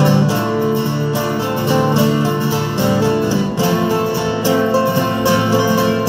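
Live band playing an instrumental passage with no singing, carried by plucked strings.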